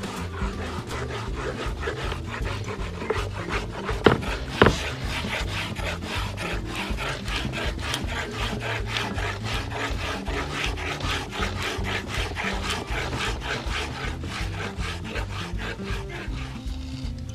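Hand sanding block with sandpaper rubbed quickly back and forth over a wooden board inlaid with light-wood points, in a fast, even rhythm of scrubbing strokes. Two sharp knocks come about four seconds in. Background music plays underneath.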